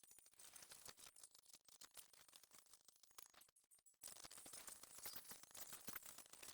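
Near silence, with faint rapid clicking and crackle throughout.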